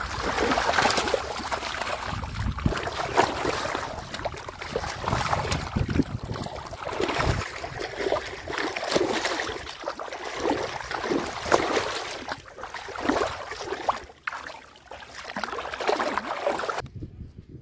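Shallow water splashing and sloshing as hands grope in the mud and grab at fish, in irregular splashes. It cuts off abruptly near the end.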